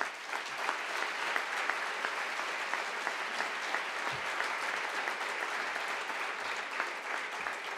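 Audience applauding: many hands clapping in a dense, steady ovation.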